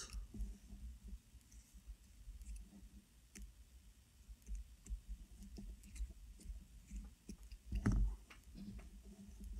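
Faint scattered clicks and taps of small metal parts as the screws on a vape tank's RBA deck are loosened and the deck is handled, with one louder knock about eight seconds in.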